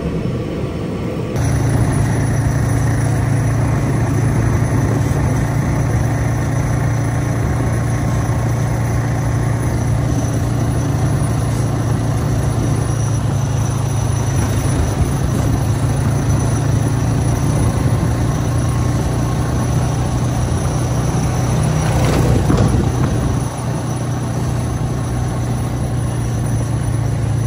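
For a second or so, the steady hum inside a Cessna Caravan's cabin; then a four-wheeler ATV's engine running steadily, heard from the rider's seat while riding along a gravel road. About three-quarters of the way in there is a brief, louder rush of noise.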